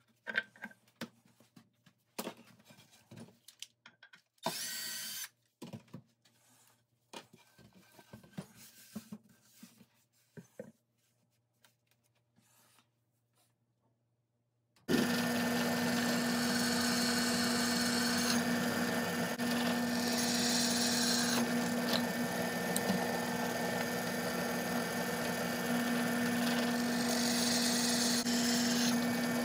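Drill press running, its twist bit boring through a black iron pipe floor flange: a steady motor hum with cutting noise that starts abruptly about halfway through. Before it come scattered knocks and clicks of iron pipe fittings being handled and set on a wooden tabletop.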